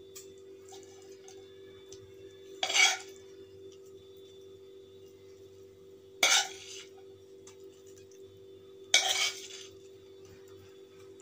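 Steel spoon scraping sautéed vegetables out of a frying pan, three short scrapes a few seconds apart, over a faint steady hum.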